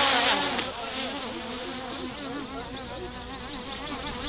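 Mavic Pro quadcopter drone crashing: a couple of sharp knocks within the first half second, then its motors and propellers keep buzzing at a lower level with an unsteady, wobbling pitch.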